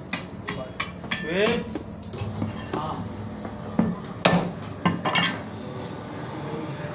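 Irregular knocks and clatters of goat meat being butchered at a wooden chopping block with a cleaver, the loudest strikes about four and five seconds in, dying away near the end. A brief voice about a second and a half in.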